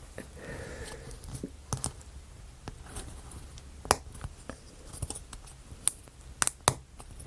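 Laser-cut plywood model pieces being handled and fitted together, giving a scatter of small irregular wooden clicks and taps, a few sharper ones near the end.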